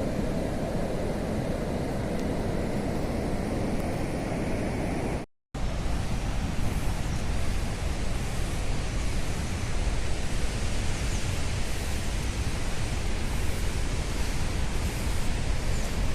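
Steady rushing noise with no distinct events, cut off by a brief silence about five seconds in, then continuing a little brighter.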